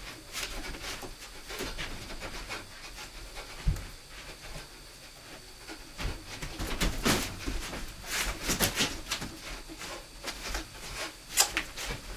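Fast, irregular flurries of hand strikes slapping and thudding against a round wall-mounted striking pad, mixed with quick, breathy exhalations. The two loudest hits land about four seconds in and near the end.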